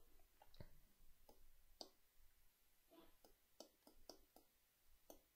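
Faint, irregular clicking: about a dozen light taps from drawing input on a computer as a structure is drawn on screen.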